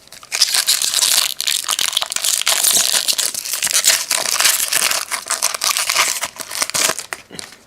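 Plastic trading-card pack wrapper being torn open and crinkled in the hands: a dense, crackly rustle that dies down just before the end.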